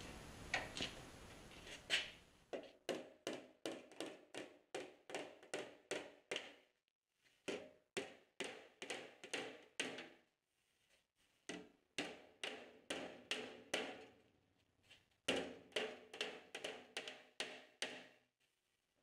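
Body hammer tapping a sheet-metal dashboard panel down over a bench edge to fold a lip. The taps come in quick runs, about three a second, each with a short ring, with brief pauses between runs.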